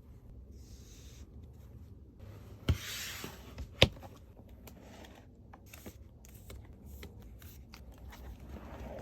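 Album packaging being handled and rubbed, with paper or plastic rustling. Two sharp clicks come just before three and four seconds in, the second the loudest, followed by scattered light ticks.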